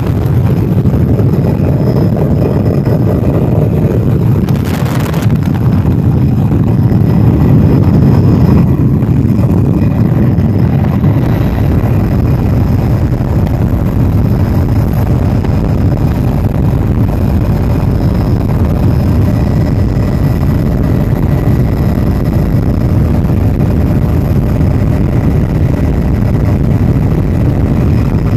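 Tour helicopter's engine and rotor noise heard from inside the cabin in flight: a loud, steady low rumble with a faint high whine over it.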